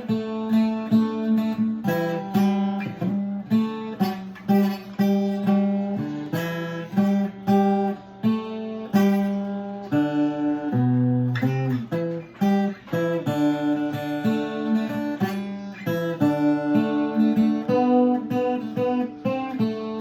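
A D'Angelico 12-string guitar converted to an octave mandolin, tuned in fifths, played as an instrumental, with a run of plucked notes and strummed chords.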